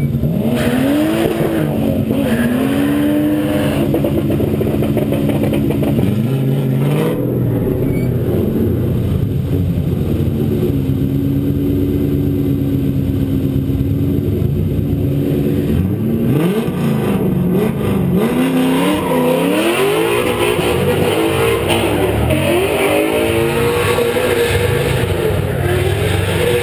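Nissan 300ZX (Z31) engine driven hard on a race track, its pitch climbing under acceleration, dropping at shifts and lifts, and rising again several times.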